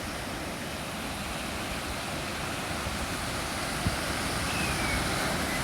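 Ocean surf washing onto the beach: a steady rush of water that swells a little toward the end, with a single small tap about four seconds in.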